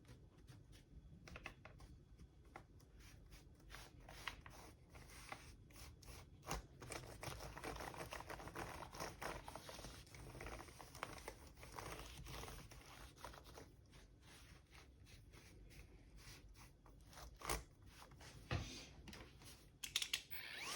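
Faint irregular rustling, scratching and light clicks of hands working on a laptop, with a couple of sharper clicks near the end.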